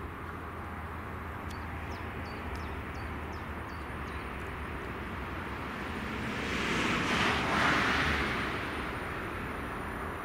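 DB Cargo class 185 electric locomotive with a train of hopper wagons approaching: a steady low rumble, with a rush of noise that swells and fades about seven seconds in. A few short bird chirps in the first few seconds.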